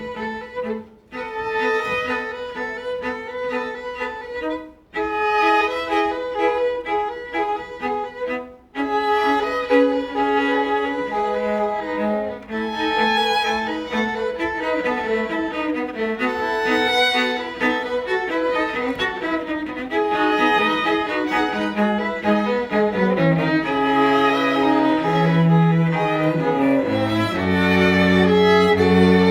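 Live instrumental ensemble music: sustained melodic notes in phrases, with short breaks about one, five and nine seconds in, then playing on without pause, and a strong low bass line coming in near the end.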